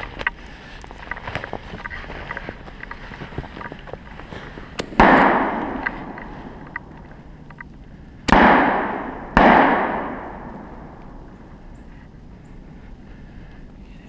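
Three shots from a Remington 870 12-gauge pump shotgun: one about five seconds in, then two about a second apart some three seconds later, each followed by a long rolling echo.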